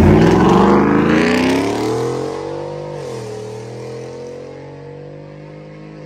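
A 2011 GMC Sierra's 5.3 L V8 accelerating hard through long-tube headers, no catalytic converters and a Magnaflow muffler, with a deep, loud exhaust. The engine note climbs, drops at a gear shift about three seconds in, then holds steady while growing quieter.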